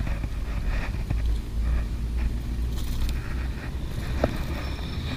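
Steady low rumble of wind buffeting a GoPro's microphone, with faint rustles and a soft tick or two from feet and fishing line moving through grass.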